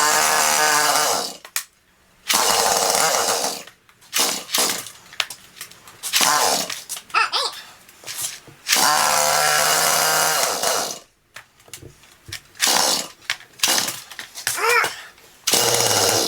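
Two-stroke chainsaw being pull-started over and over: about seven loud pulls of the recoil starter, each a second or two long with short pauses between. The engine does not settle into a run, because the fuel tank is empty.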